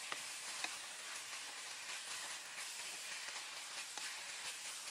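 Raw chicken pieces sizzling steadily in hot oil in a frying pan as they are turned with a wooden spatula, with a few light clicks of the spatula against the pan.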